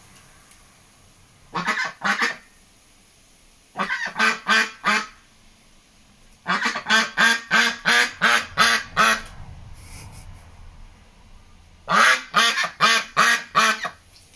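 White domestic duck quacking loudly in four rapid runs of short, harsh quacks, from about three to ten calls in a row, with pauses of a second or more between the runs.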